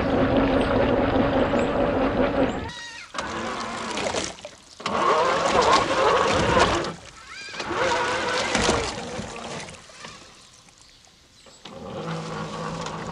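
Traxxas TRX4 RC crawler's brushless motor and gear drivetrain whining under throttle. It holds a steady pitch at first, then comes in several bursts whose pitch rises and falls as the throttle changes, with short pauses between them.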